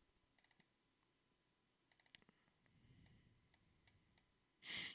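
Faint clicks of a computer mouse, several in quick succession as with double-clicks, against near silence. A short puff of noise near the end is louder than the clicks.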